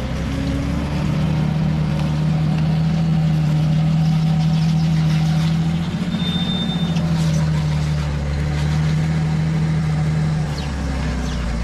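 Hägglunds Bv206 tracked all-terrain vehicle driving past at low speed, its engine running steadily. The engine note rises about a second in, sags briefly around six seconds and again near the end, and the sound is loudest midway as the vehicle passes close.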